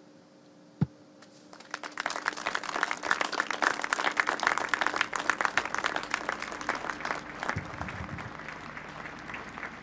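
A single thump, then an audience applauding: the clapping starts about a second and a half in, swells quickly and slowly thins out.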